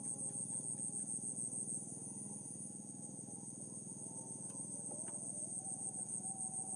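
Evening chorus of crickets and other insects: a steady, high, finely pulsing trill, over a denser, fast-pulsing lower drone.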